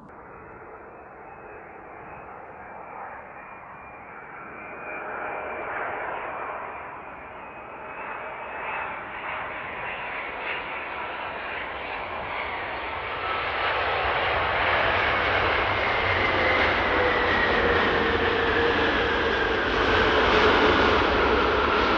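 Boeing 787-9 airliner's jet engines during landing, growing steadily louder as it comes in, with an engine whine that falls in pitch as the aircraft passes.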